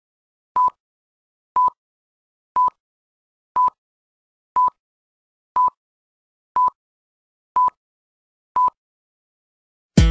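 Film countdown leader beeps: a short, high, single-pitched beep once a second, nine times, with silence between. Strummed acoustic guitar music comes in right at the end.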